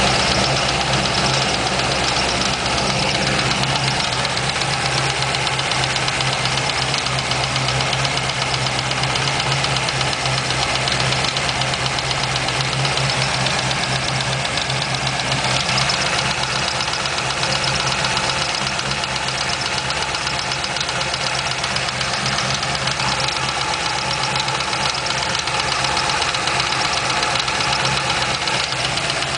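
2004 Corvette Z06's LS6 V8 idling steadily with a fast, regular tick running through it, the tick the owner is trying to track down.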